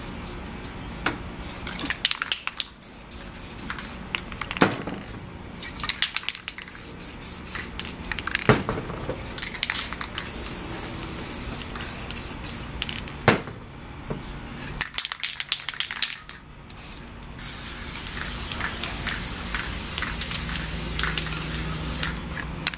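Aerosol spray paint cans hissing in bursts, with longer sprays about ten seconds in and again over the last five seconds. Sharp clicks and knocks come in between.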